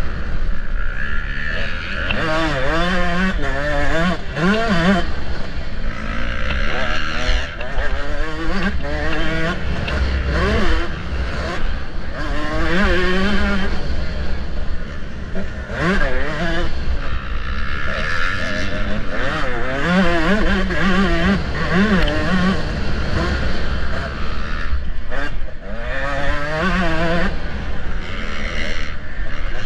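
Motocross bike engine ridden hard round a dirt track, revving up and easing off again and again, its pitch sweeping up with each burst of throttle and dropping back between them.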